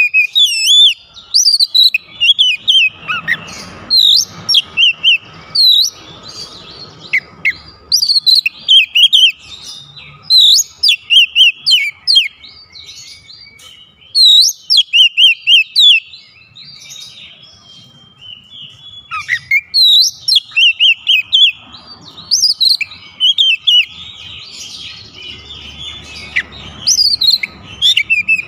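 Oriental magpie-robin singing loud runs of quick, varied whistled phrases, each run a second or two long with short pauses between.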